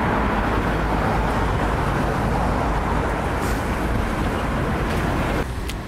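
Steady roar of road traffic with a heavy low rumble, dropping away suddenly near the end.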